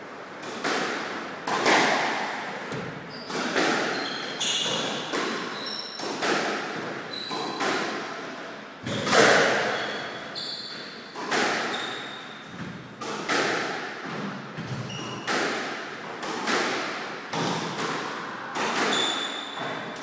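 Squash rally: the ball struck by rackets and smacking off the court walls about once a second, each hit echoing in the court, with brief shoe squeaks on the wooden floor between hits.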